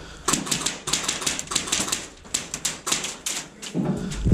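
Airsoft gunfire in close quarters: a rapid, irregular stream of sharp clicks and cracks from rifles firing and BBs striking around the room, with brief lulls.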